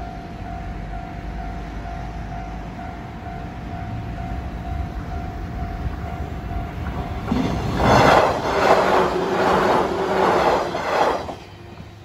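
Japanese level-crossing warning bell ringing steadily over the growing rumble of an approaching train. From about seven seconds in the train passes close by for about four seconds, its wheels clattering over the rail joints in several loud pulses, then the clatter cuts off suddenly.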